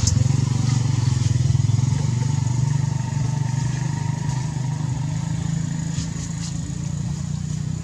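A small engine running steadily nearby with a low drone, slowly fading over the few seconds.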